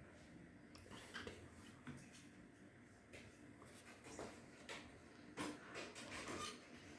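Near silence: faint room tone with a scattered handful of soft clicks and rubbing sounds.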